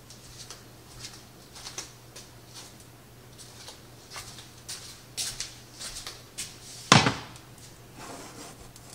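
Scattered light clicks and knocks of cookware and cupboards being handled in a kitchen, with one loud knock about seven seconds in, over a steady low hum.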